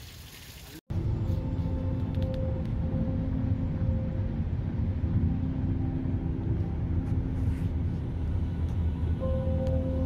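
A brief soft hiss of pond water, then, about a second in, an abrupt cut to the steady low rumble of a car's road and engine noise heard inside the cabin at highway speed.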